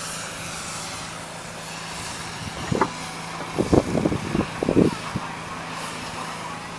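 A 2010 Chrysler Town and Country minivan's power rear liftgate closing under its motor: a steady hum, then a cluster of short clunks about three to five seconds in as it shuts and latches.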